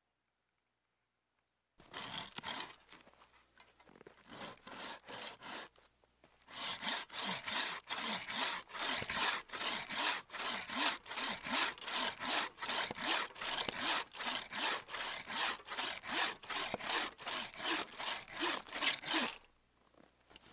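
Hand bow saw cutting through a dead tree trunk. A few uneven strokes start about two seconds in, then after a short pause come steady back-and-forth strokes about two a second, which stop about a second before the end.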